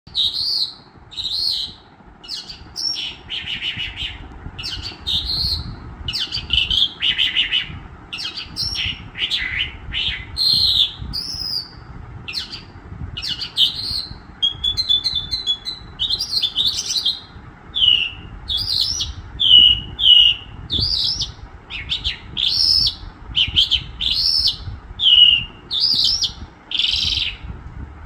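Caged songbird singing loudly in a steady stream of short, repeated whistled phrases, with a quick trill about halfway through.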